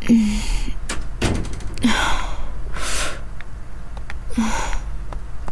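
A drunk woman's breathy gasps and sighs, short and repeated, as she is half-carried along, with a few light clicks between them.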